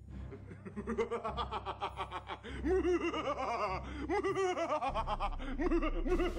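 A man laughing a drawn-out villain's laugh. It starts as quick, breathy chuckles and grows louder about two and a half seconds in, each 'ha' rising and falling in pitch.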